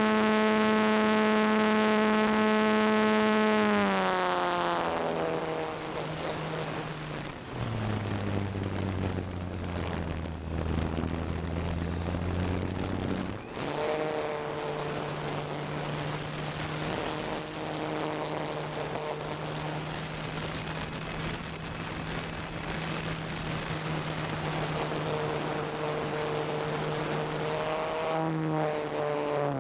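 ParkZone T-28 Trojan RC plane's electric motor and propeller whining, heard from the onboard camera with air rushing past. The pitch drops in two steps over the first eight seconds and runs low for several seconds. About halfway through it jumps back up and holds steady, with another shift near the end.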